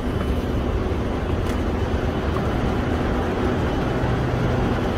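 Steady rushing noise with a constant low hum: the ambience of a railway station platform. A faint click comes about one and a half seconds in.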